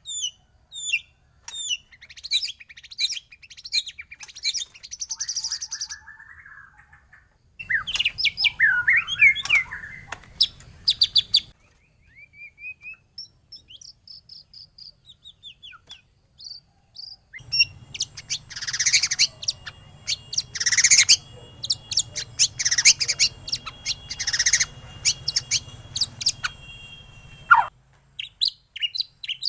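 Songbirds singing rapid chirps and whistled phrases in a bird-song lure recording used to set off white-rumped shamas. The song comes in separate stretches that start and stop abruptly, with two near-pauses, a short one around seven seconds in and a longer one around the middle; some stretches carry a steady low hiss underneath.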